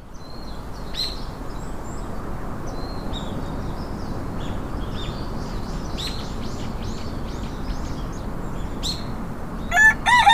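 Small birds chirping in short, scattered tweets over a steady outdoor background hiss, fading in at the start. Near the end a rooster begins crowing loudly.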